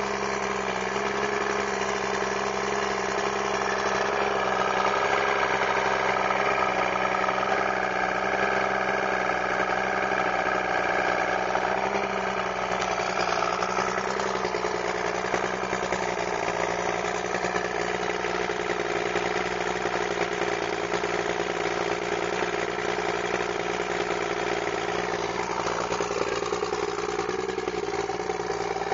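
1973 Chrysler 70 hp three-cylinder two-stroke outboard idling steadily while warming up after a cold start. It is running out of the water on a garden-hose flush attachment, with water spraying from the lower unit.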